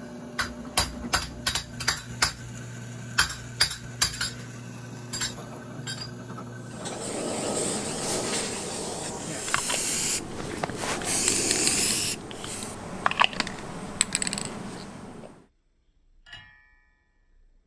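A benchtop drill press running with a steady hum while a forged iron handle is drilled, with repeated sharp clicks and knocks of metal on the bit and table. Then an aerosol spray can hissing in several bursts as the iron handles are sprayed, followed by a single light metallic clink of a handle set on an anvil.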